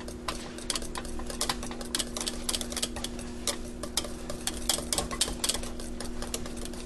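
Wire whisk beating a thick white sauce in a stainless steel saucepan, its wires clicking rapidly and unevenly against the sides of the pan, over a steady low hum.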